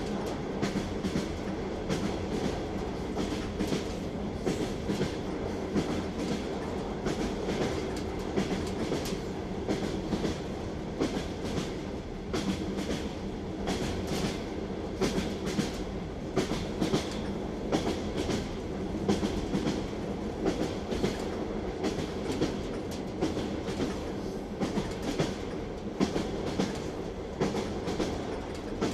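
Train wheels clattering over the rail joints: a steady rumbling run with a repeated clickety-clack of sharp knocks.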